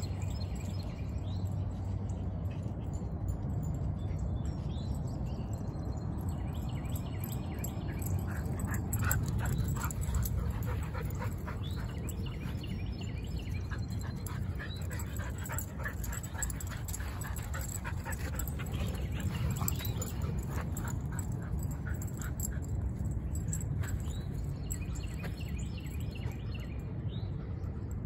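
Dogs making short, high whines and yips while they play.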